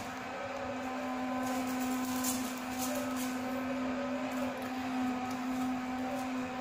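A steady mechanical hum holding one low buzzing pitch, with a few faint clicks of a young water monitor's claws scrabbling on a tiled floor.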